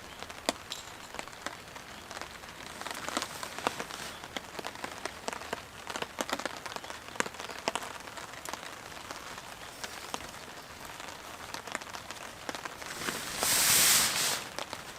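Steady rain with many sharp drop taps. Near the end comes a louder scratchy rush lasting about a second.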